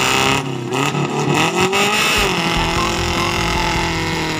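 Off-road 4x4's engine revving up and down as it works through deep mud, then settling to a steadier, deeper run from about two seconds in.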